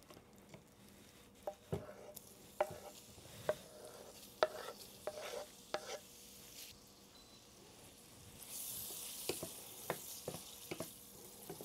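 Chopped brains scraped with a wooden spatula off a wooden cutting board into a frying pan, with a series of scattered knocks and clicks. About seven seconds in, a soft sizzle of the brains frying in butter builds, and the wooden spatula knocks against the stainless pan as it stirs them.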